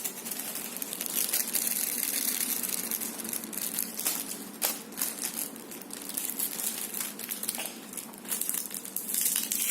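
Thin plastic packaging crinkling and rustling, with scattered small clicks, as a piece is worked out of it.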